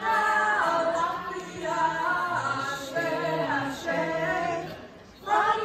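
A group of voices singing a chant together, unaccompanied, with no drumming; the singing breaks off briefly near the end before the next phrase begins.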